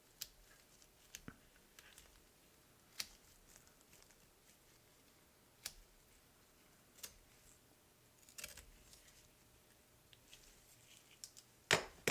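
Masking tape being handled, torn and cut while taping off the trim on a diecast car body: scattered faint clicks and crinkles, with one sharper, louder snap near the end.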